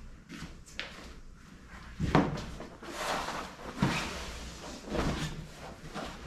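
Upholstery handling: a foam seat cushion set down on a wooden worktable and a stitched seat cover rustled and pulled down over it, with a few dull knocks.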